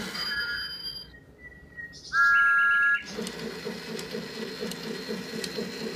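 Thomas the Tank Engine electronic toy clock: a steady whistle-like electronic tone about two seconds in, the loudest sound, lasting about a second. It is followed by an even, rhythmic chugging as the little motorized Thomas engine runs around the clock-face track.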